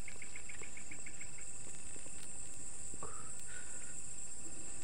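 Chorus of night insects: a steady, high shrill drone, with a quicker pulsed chirping of about seven pulses a second that stops about a second and a half in. Two short, higher calls come near the middle.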